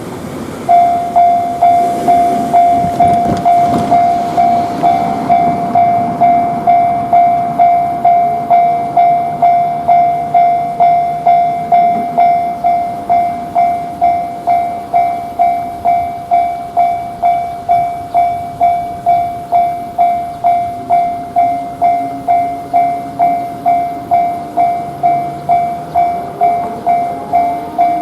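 Japanese railway level-crossing warning alarm ('kan kan') starting up about a second in, then ringing steadily at about two strikes a second, each strike fading before the next.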